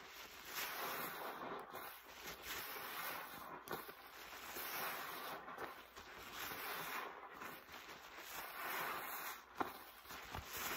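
Rubber-gloved hands repeatedly squeezing a soapy, foam-laden sponge in rinse water: wet squelching and crackling of suds that swells and eases with each squeeze, with a few sharp pops.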